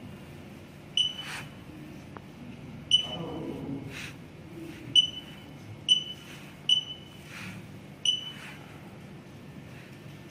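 Short high-pitched key beeps from the TSP-CV1 tissue processor's touchscreen as numbers are tapped in on its on-screen keypad: six beeps of the same pitch, spaced irregularly, one per key press.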